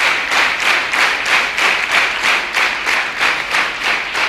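Concert audience applauding, the clapping falling into a steady unison rhythm of about three claps a second.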